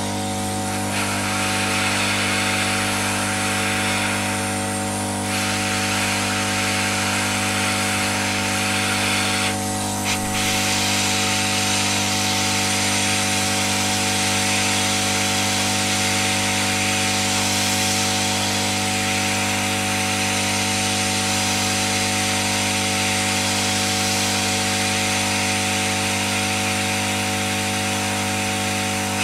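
Hot-air gun blowing at full power: a steady rush of air over a constant fan-motor hum. The air noise is weaker for a few seconds about five seconds in.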